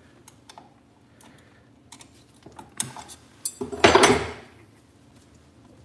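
Metal hand tools clinking and clattering on a workbench beside an engine casing: a few light clicks and taps, then a louder metallic clatter with a short ring about four seconds in, as a steel pry bar is put down and pliers are taken up.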